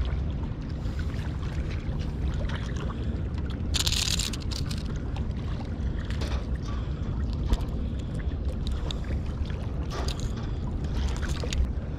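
Sea waves washing against the rocks of a breakwater, a steady low rush, with a short sharp hiss about four seconds in.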